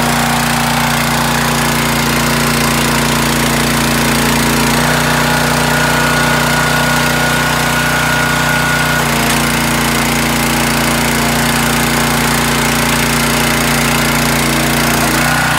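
Small gasoline engine of a Champion 37-ton hydraulic tire doubling machine running steadily. From about five seconds in to about nine seconds its note shifts and a thin high whine joins it.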